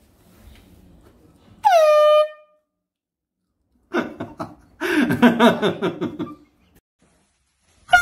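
Handheld air horn sounding one blast of under a second, its pitch dropping at the onset and then holding steady. A couple of seconds later a person cries out, and a second short air-horn blast begins at the very end.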